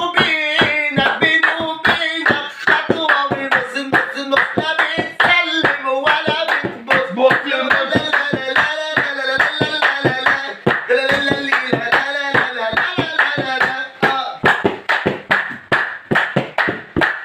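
A man singing an Egyptian shaabi-style song over steady rhythmic hand clapping, about three claps a second. Near the end the singing drops away while the clapping carries on.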